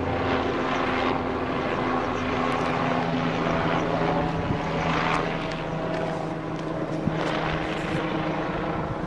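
Helicopter in flight: a steady drone of rotor and engine.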